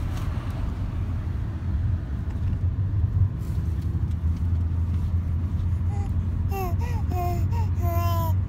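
Steady low rumble of road and engine noise inside a moving car. From about six seconds in, an infant starts cooing and babbling in short, high, sliding sounds that grow more frequent toward the end.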